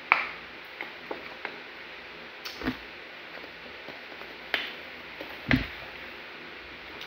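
Drinking from a plastic water bottle: a sharp crackle of the bottle at the start, then scattered soft clicks and two dull knocks.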